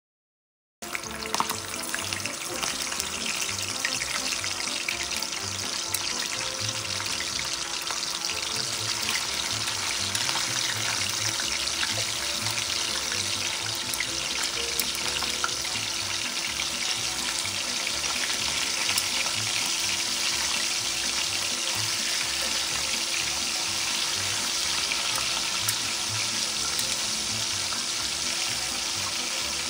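Whole fish frying in hot oil in a nonstick pan, a dense steady sizzle that starts abruptly about a second in and holds to the end.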